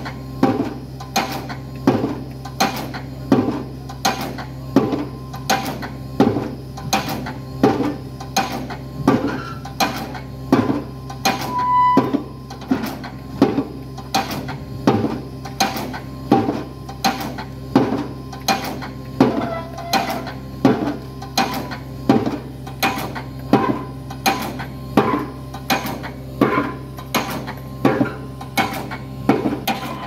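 Pile hammer on an excavator-mounted leader driving a steel pipe pile, striking in a steady rhythm of about three blows every two seconds over the continuous hum of the excavator's engine.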